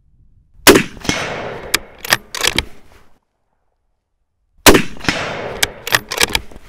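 Two unsuppressed shots from an Accuracy International AXMC bolt-action rifle in 7.62 mm/.308, one shortly after the start and the second about four seconds later. Each report rings out for a second or two and is followed by a quick run of sharp metallic clicks as the bolt is cycled.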